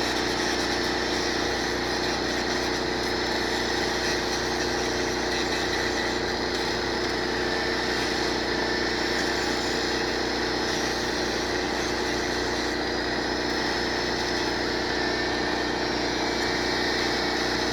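Angle grinder with a grinding wheel running steadily, grinding a broken metal part clean for welding, over the steady running of a portable generator's engine.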